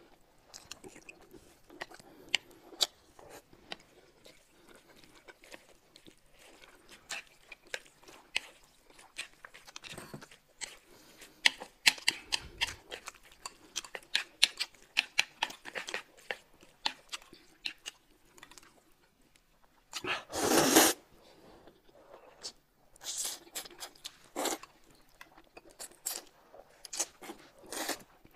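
Close-miked eating: crunchy bites and chewing, many short crackles in a row. About two-thirds of the way through there is a louder, noisy burst lasting about a second.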